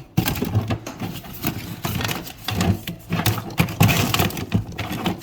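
Tools and gear clattering and knocking as they are handled and moved around in a toolbox: a quick, irregular run of clicks and knocks.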